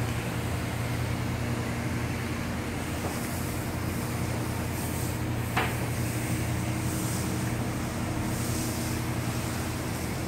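Car wash pressure-washer wand spraying water onto the concrete floor with a steady hiss, over the constant hum of the wash's high-pressure pump. One short sharp click a little past halfway.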